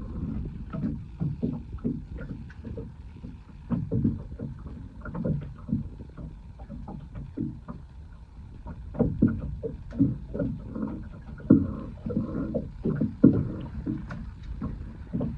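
Small waves slapping and knocking against the hull of a small open boat, in irregular low thumps that come closer together and louder about nine seconds in.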